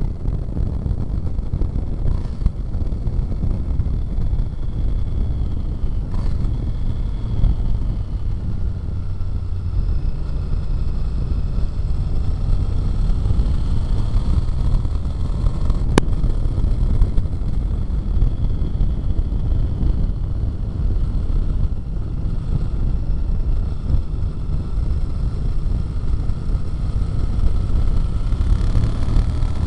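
Sportbike engine and exhaust running at road speed, a dense low rumble mixed with wind rush over the microphone, the pitch shifting slightly with the throttle. One sharp click about halfway through.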